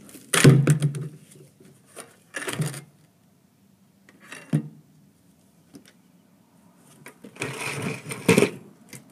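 Plastic buckets being handled and set down on the ground: a loud knock about half a second in, two lighter knocks, then a longer scraping clatter near the end as buckets are shifted against each other.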